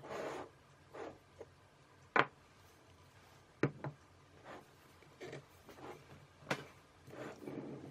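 A merbau wood turntable being handled: scattered light knocks and short rubbing noises, with sharper knocks about two seconds in, at about three and a half seconds, and at about six and a half seconds.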